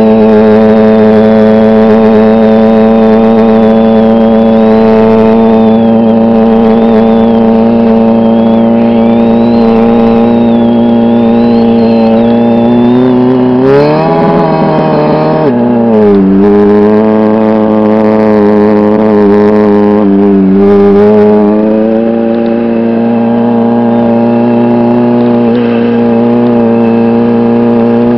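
Motorcycle engine running loud and steady under the rider, briefly revved up about halfway through and then settling back.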